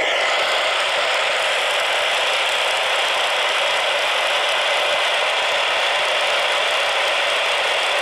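Steady static hiss from the small speaker of a Midland emergency weather radio tuned to 1280 on the AM band, with no station coming through.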